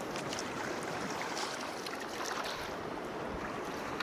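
Choppy sea water lapping and sloshing against a sea kayak's hull, a steady wash with small splashes.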